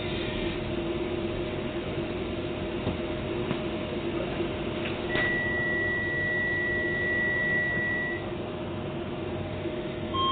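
Docklands Light Railway train running, heard from inside the car: steady running noise with a low hum from the drive. About five seconds in, a single high steady tone sounds for about three seconds.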